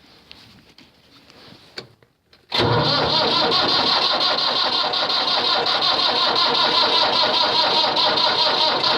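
Starter cranking the cold diesel engine of a David Brown 1494 tractor, starting suddenly about two and a half seconds in and held on steadily without the engine catching. It is a hard cold start without ether.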